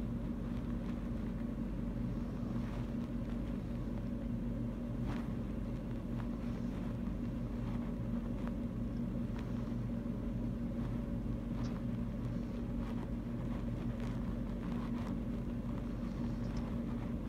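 Steady low background hum with a few faint clicks scattered through it.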